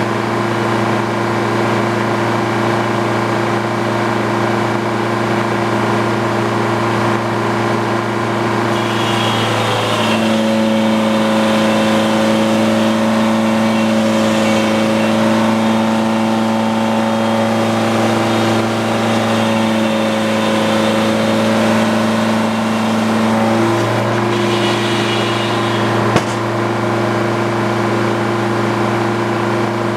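Engine driving a Frick sawmill's circular saw, running steadily. About ten seconds in its pitch drops slightly as it takes the load of a cut, and it picks back up near the end, with one sharp knock shortly after.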